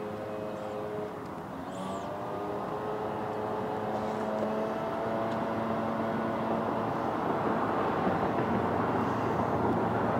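An engine running steadily, its pitch drifting slowly, under a rushing noise that grows louder over the second half.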